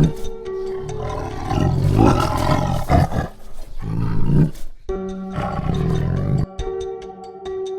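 A big cat roaring several times, with background music under it; the roars stop about two thirds of the way in and the music carries on.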